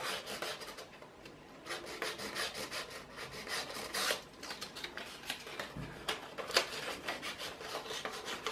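A slip of paper being slid to and fro between a CR-10 3D printer's nozzle and its glass bed, giving faint, irregular scratching strokes as the nozzle just grips it. This is the paper test for a level bed.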